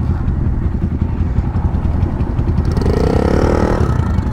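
Honda Monkey mini motorcycles riding, with steady engine rumble and wind noise. About three seconds in, an engine note rises in pitch as a bike accelerates.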